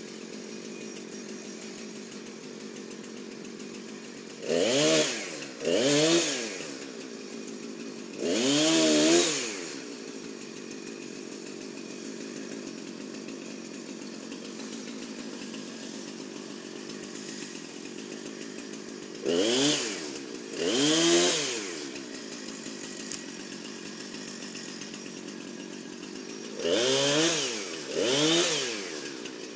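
Husqvarna two-stroke chainsaw idling steadily, revved hard seven times in short bursts that rise and fall in pitch: three close together about five seconds in, two near the middle, and two near the end.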